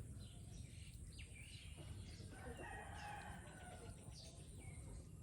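A faint rooster crow, about two seconds in and lasting about a second and a half, with small birds chirping throughout.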